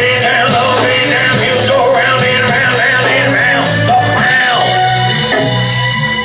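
Rock-style song with a voice singing in wavering, sliding notes over a steady bass line.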